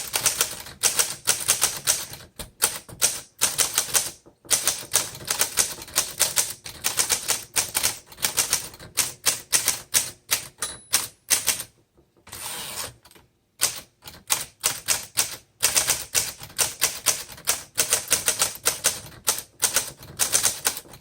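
1936 Corona Sterling flat-top manual typewriter being typed on: a fast run of key and typebar strikes in bursts with short pauses, and a longer lull a little past halfway.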